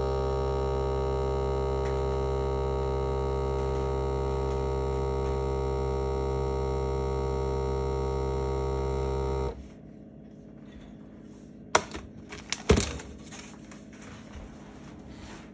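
Cuisinart vacuum sealer's pump running with a steady hum, cutting off suddenly about nine and a half seconds in as the vacuum-and-seal cycle ends. A few sharp clicks and rattles follow as the lid is opened and the sealed bag taken out.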